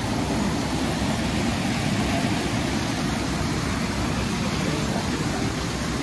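Stream swollen by heavy rain rushing over rocks as a steady, low rush of water.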